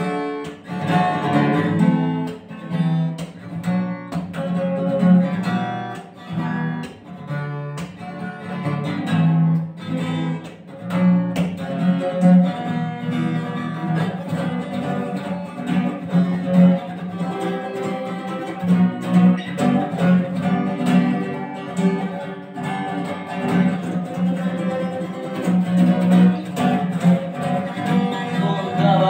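Acoustic guitar strummed steadily, playing a song's instrumental intro.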